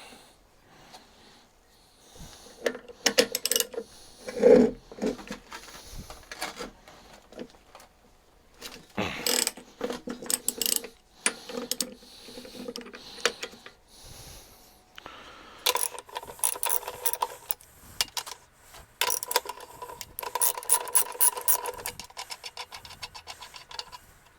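Hand tools clinking against metal, then a socket ratchet clicking rapidly in long runs as a rusted bolt is worked loose.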